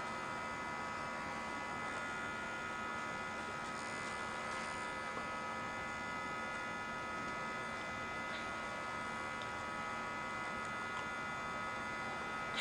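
A steady electrical hum, with several thin high tones held on one pitch and no other distinct sound.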